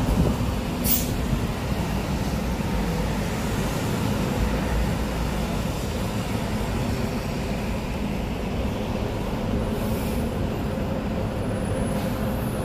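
City street traffic: a steady low rumble of road vehicles and engines, with one brief sharp hiss about a second in.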